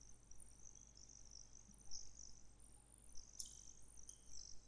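Near silence: room tone with a steady low mains hum and a faint, patchy high-pitched hiss.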